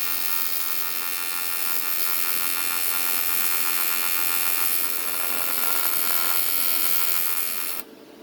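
AC TIG welding arc on aluminum, from an AHP AlphaTIG 200X set to 65–70 Hz AC at 75% balance: a steady electric buzz with a hissing crackle, cutting off suddenly near the end as the arc is broken, leaving a fainter steady hum.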